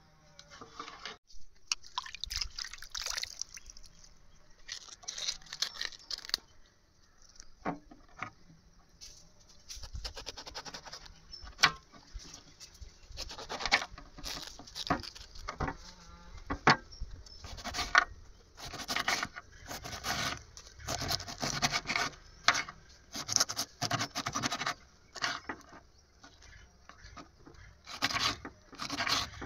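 Irregular scraping, clicks and knocks of kitchen utensils against cookware, as in food preparation.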